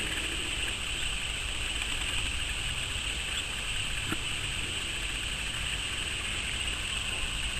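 Steady background hiss and low rumble, with one faint click about four seconds in.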